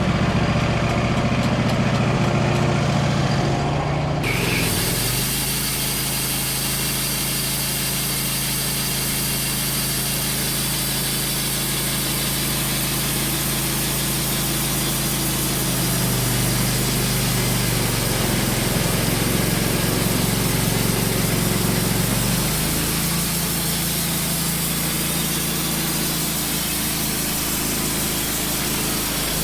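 Wood-Mizer LT15 band sawmill at work: its engine runs steadily throughout, and about four seconds in the steady hiss of the band blade cutting through a hard maple log joins it.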